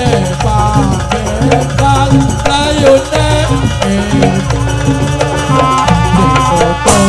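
Live jaranan ensemble music: hand drums and pitched percussion keeping a steady pattern under a wavering melody line. A sharp crack sounds near the end.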